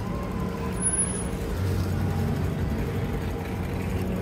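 Street traffic noise, with a vehicle engine running steadily as a low hum.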